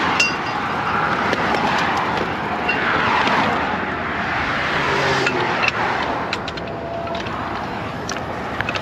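Highway traffic passing close by: a steady tyre-and-engine rush that swells as vehicles go past. A few light clicks come in the second half.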